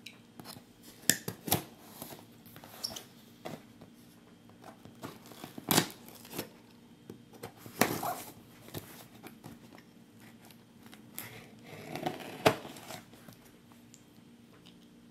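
Knife blade slitting and scraping packing tape on a cardboard shipping box: short, irregular scrapes and sharp clicks, the loudest one near the end.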